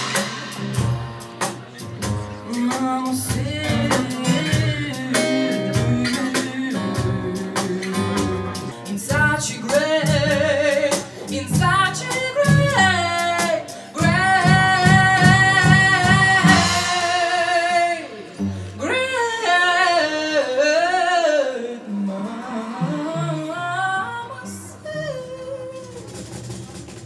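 Live acoustic band: a woman singing with a strong vibrato over acoustic guitar, cello and keyboard. Her long held notes about halfway through are the loudest part, and the music grows quieter toward the end.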